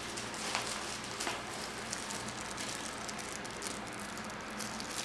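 Faint rustling with a few light clicks, as of small objects being handled, over a steady background hiss.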